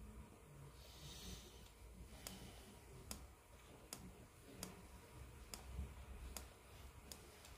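Faint, regular clicks a little under a second apart from a hand pin vise being twisted to drill a hole through a plastic model-kit fuselage half.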